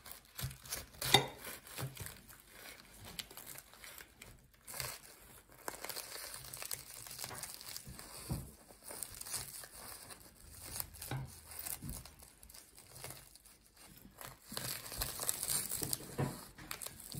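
Crisp, flaky puff-pastry crust of a frangipane galette des rois crackling and crunching as a serrated Global bread knife saws through it, with a sharp tap about a second in.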